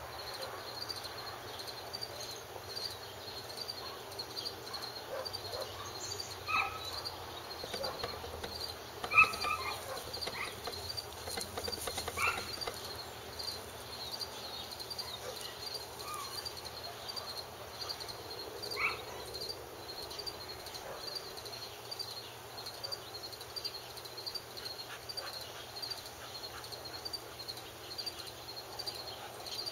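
Outdoor evening insect chorus: an insect, cricket-like, chirping steadily in a regular pulse about once a second, with a few short high calls or squeaks scattered through the first two-thirds, one of them sharply louder about nine seconds in.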